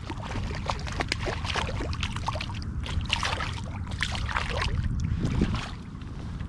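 Water trickling and splashing around a fishing kayak, with many irregular small clicks and knocks over a steady low rumble.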